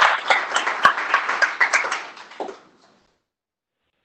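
Audience applauding, the clapping thinning out to a few separate claps and stopping about two and a half seconds in.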